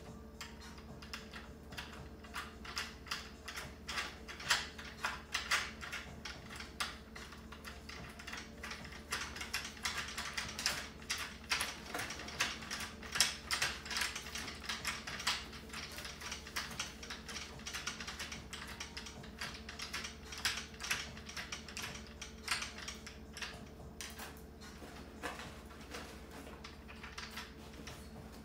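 Rapid, irregular light clicking and rattling of a metal caster wheel being screwed by hand into the leg of a steel-frame rolling cart, its swivel and wheel clattering as it turns.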